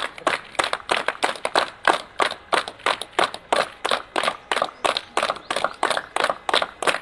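A small group of people clapping their hands together in a steady rhythm, about four claps a second.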